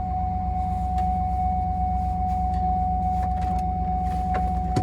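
2007 Cadillac Escalade's V8 idling steadily, with a single steady high-pitched tone running over it and a few light clicks near the end. The engine is running again after a no-start, no-crank fault, with the body control module's green connector unplugged; the owner suspects a failing BCM.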